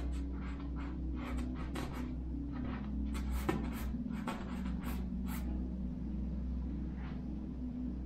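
Paintbrush strokes on canvas: quick repeated scratchy strokes, about three a second, that stop about five and a half seconds in, with one faint stroke later, over a steady low hum.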